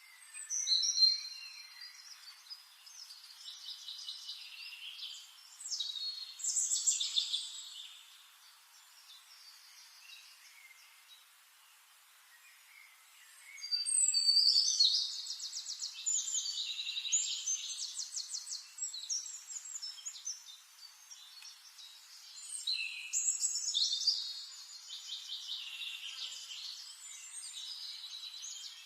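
Forest songbirds singing in a series of phrases of quick high notes and trills, with a quiet spell of a few seconds about a third of the way in.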